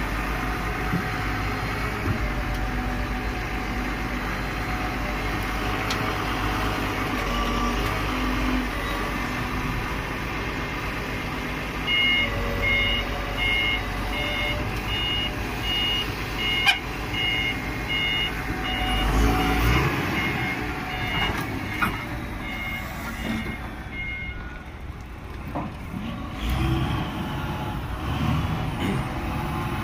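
A vehicle engine runs steadily. From about twelve seconds in, a reversing alarm beeps at an even pace of roughly two beeps a second for about twelve seconds, then stops. A single sharp knock sounds partway through the beeping.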